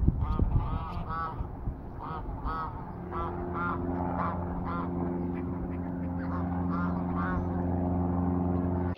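Geese honking over and over, short calls in quick series. A steady low hum with several even tones comes in about three seconds in and holds under the calls.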